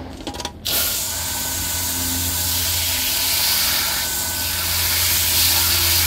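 Garden hose spray nozzle jetting water onto a vent fan's round mesh screen, starting with a click about half a second in and then running as a steady loud hiss of spray, with a low hum underneath.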